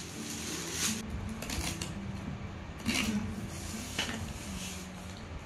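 Crinkling and tearing of metallic foil gift wrap as a present is unwrapped, with several sharp crackles, then hands handling a taped cardboard box.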